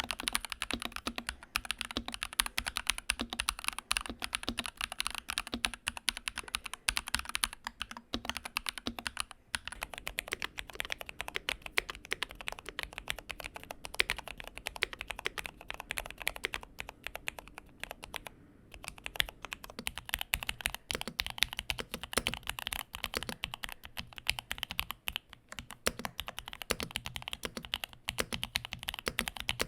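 Fast, continuous typing on mechanical keyboards: dense clacks of the keys and spacebar. The character of the typing changes about a third and about two-thirds of the way through.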